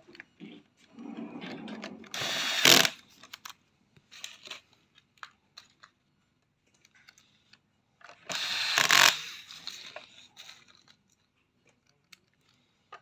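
Small electric screwdriver driving the motherboard screws into a robot vacuum's plastic chassis: two short runs of about a second each, around two seconds in and again around eight seconds in, with light clicks of parts being handled between them.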